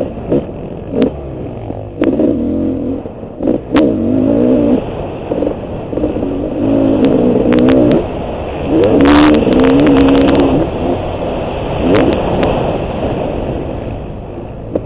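Honda CR500 two-stroke single-cylinder engine in a motocross bike, revving hard and backing off again and again as the rider opens and closes the throttle through the track, with a few sharp knocks along the way.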